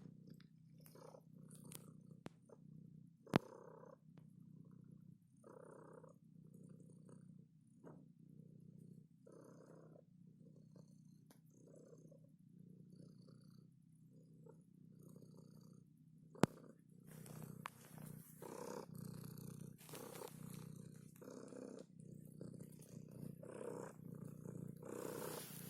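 Domestic cat purring steadily, the purr swelling and fading in a regular rhythm about once a second, and growing louder about two-thirds of the way through. Two sharp clicks cut in, one early and one midway.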